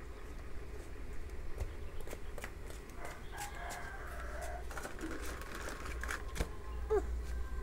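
Small plastic toys clicking and knocking as they are handled, over a steady low rumble. A faint, wavering call sounds in the background about three seconds in, and a short falling one near the end.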